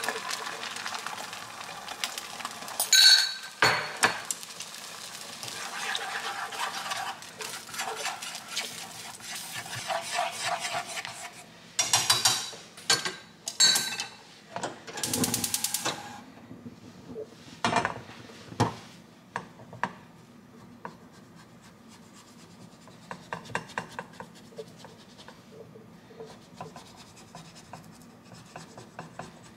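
Cooking utensils stirring and scraping beaten egg in a nonstick frying pan, with clinks and scrapes against the pan in bursts, the loudest in the first two-thirds. The pan settles to lighter rubbing near the end.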